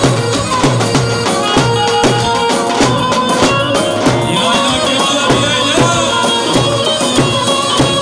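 Turkish folk dance music for a halay: a davul bass drum beats a steady rhythm under a melody line.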